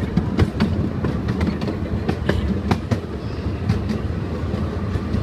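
Open wooden passenger carriage of a park ride train rolling along the track: a steady low rumble with irregular clicks and knocks from the wheels and couplings.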